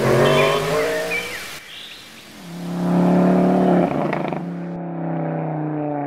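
A car engine revving in two swells, the second and louder one about three seconds in, with a short crack near the four-second mark.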